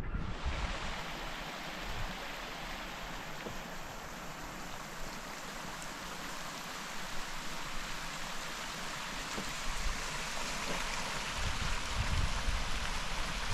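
Small stream running over rocks in a tussock gully: a steady hiss of rushing water, with a few low bumps near the end.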